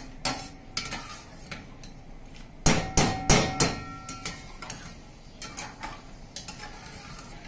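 Metal spoon stirring rice in a stainless steel pot, scraping and knocking on the pot, with a quick run of several loud knocks about three seconds in that leave the pot briefly ringing.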